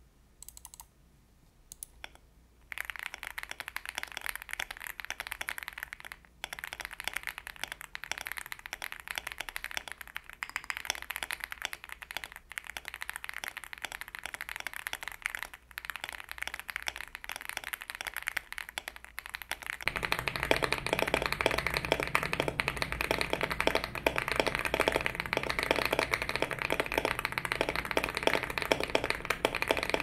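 Fast typing on a Leobog Hi8 keyboard with factory-lubed Leobog Greywood V4 linear switches, a polycarbonate plate and PBT Cherry-profile keycaps, a dense run of keystrokes. A few light clicks come first, before the typing begins. About twenty seconds in the typing is picked up through a phone's microphone instead, and it sounds louder and fuller.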